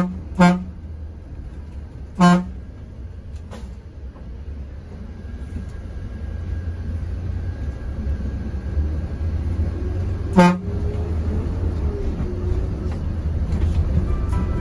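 Short toots of a vehicle horn, three in all: one right at the start, one about two seconds in and one about ten seconds in. A steady low engine rumble runs underneath.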